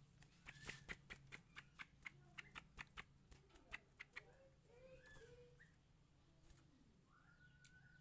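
Faint, sharp clicks and taps, three or four a second through the first half, from a caged leafbird hopping about its cage. A few faint chirps follow, and a short trill near the end.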